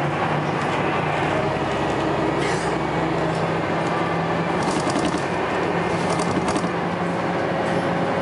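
Inside a Scania L94UB single-decker bus under way: the engine drones steadily under load. Interior fittings rattle in short clusters, mostly around the middle.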